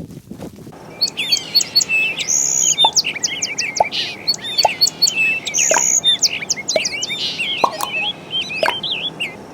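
Birds chirping: a dense run of quick chirps and trills that begins about a second in, over a steady hiss.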